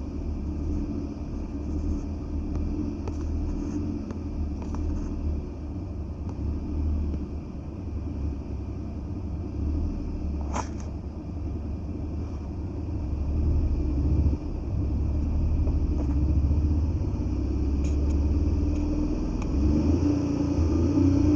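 Maruti Alto engine running at a steady fast idle of about 1600 rpm, heard as a low rumble, with one sharp click about ten seconds in and the engine note shifting near the end.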